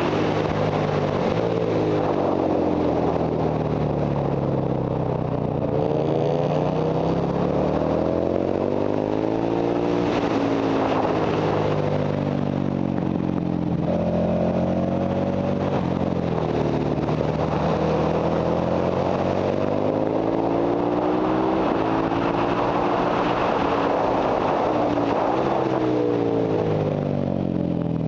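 Ducati Monster 1100 EVO's air-cooled L-twin engine under hard track riding, its pitch climbing and dropping again and again as it accelerates out of corners and shifts, with wind rush over the onboard microphone.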